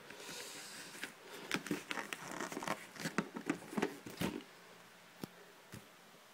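Cardboard product box handled and turned over in the hands: rustling with a run of light knocks and scrapes for about four seconds, then two faint clicks.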